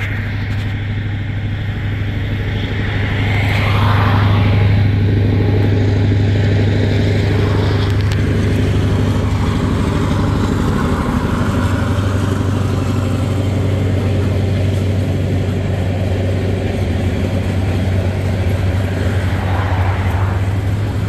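Norfolk Southern diesel locomotive running with a steady low engine drone as it passes, growing louder about four seconds in. Road vehicles pass close by about four seconds in and again near the end.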